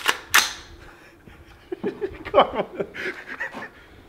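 Two rifle shots from an AR-15-style rifle firing 5.56 green-tip rounds, about a third of a second apart, right at the start. They are followed about a second and a half later by roughly two seconds of a person's voice.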